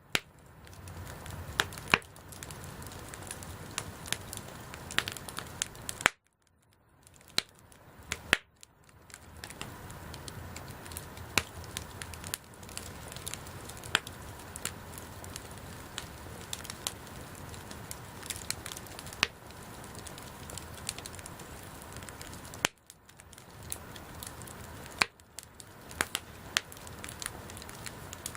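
Wood campfire burning, with a steady hiss and irregular crackles and sharp pops. The sound drops away briefly a few times, about six seconds in and twice near the end.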